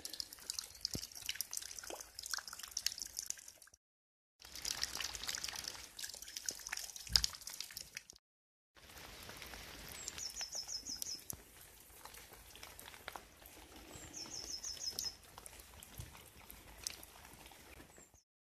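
Rainwater dripping and pattering from a roof edge and a downpipe outlet, many small drip ticks over a light hiss, broken twice by a brief silence. A bird calls twice with a quick run of high notes, about ten and fourteen seconds in.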